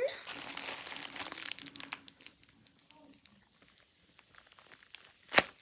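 A homemade paper squishy crinkling as it is squeezed and handled, densest for about the first two seconds and then dying down to scattered crackles. Near the end come two loud sharp knocks about half a second apart.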